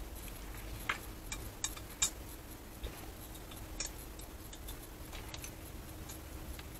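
Small, sharp metallic clicks at irregular intervals as a Torx screwdriver turns out the screws holding the blower motor on an Eberspächer diesel parking heater.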